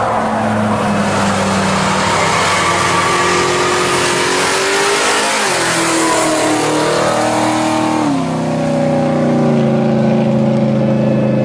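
Muscle car engine accelerating hard as the car drives past and away: the revs climb, drop sharply twice as it shifts up, then climb again.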